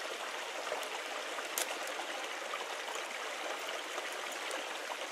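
Small woodland creek running over rocks, a steady rush of water, with one short click about a second and a half in.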